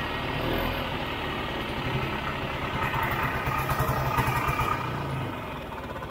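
Vintage Ski-Doo snowmobile's single-cylinder two-stroke engine running under throttle as the sled moves across snow, then dropping back toward idle about five seconds in as the sled stops.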